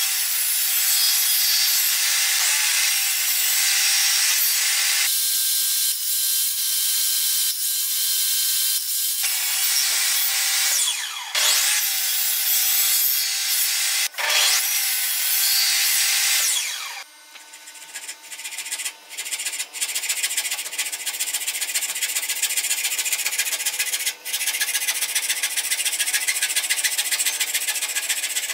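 Table saw running and cutting through the end of a board held upright in a wooden vertical-cutting jig, a steady high-pitched whine with brief dips as the cut goes on. About 17 seconds in it gives way to a hand frame saw cutting wood in repeated back-and-forth strokes.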